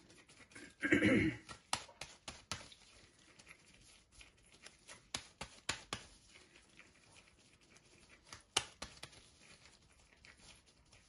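Latex-gloved hands squeezing and patting soft chicken-and-lentil kebab mixture into patties: quiet wet pats with scattered light clicks, and one louder short rustling burst about a second in.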